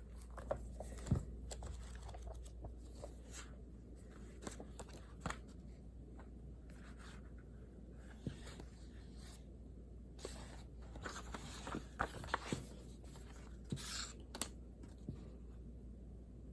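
Pen writing on paper, with scattered light taps and clicks and short scratchy paper rustles, over a low steady hum.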